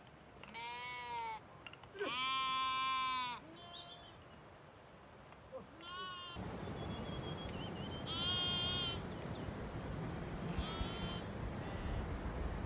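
A flock of sheep and goats bleating: about six separate bleats, the longest and loudest around two seconds in. A steady rustling hiss runs beneath the later calls.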